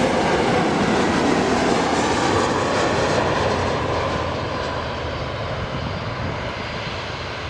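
Jet airliner engines passing close by on landing, a loud roar with a whine that falls slightly in pitch as the noise fades away.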